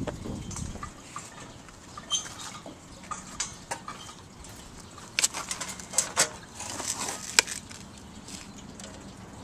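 Scattered light metallic clicks and clinks of metal parts and fasteners being handled, with a cluster of sharper knocks between about five and seven and a half seconds in.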